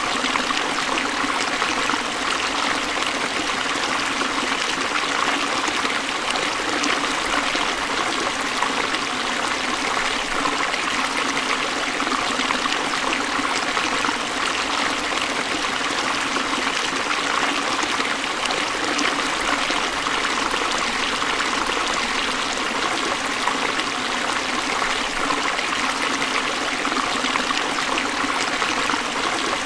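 Forest stream of flowing water, running steadily with an even rush and trickle and no breaks.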